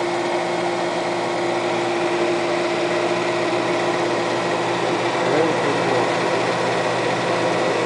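Steady mechanical whir with a constant hum, unchanging throughout.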